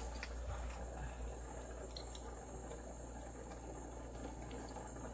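Lampworking bench torch burning with a steady hiss, with a few faint clicks of glass rods early on and again about two seconds in.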